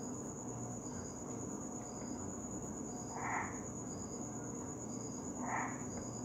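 Cricket chirping: a continuous high trill with a shorter, lower chirp repeating about twice a second.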